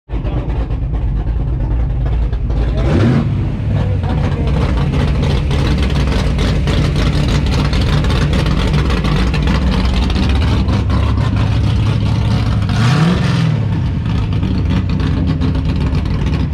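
Plymouth Road Runner's 426 Hemi V8 running loudly at idle, revved briefly twice: about three seconds in and again about thirteen seconds in.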